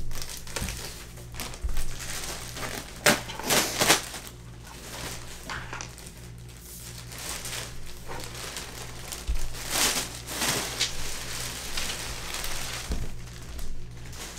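Thin plastic wrapping sheet crinkling as it is gathered up off a mattress. The rustle comes in a few bursts, loudest about three to four seconds in and again around ten seconds.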